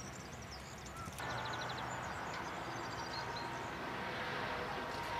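Outdoor ambience: small birds chirping, with one quick trill, over a steady background hiss that grows a little louder about a second in.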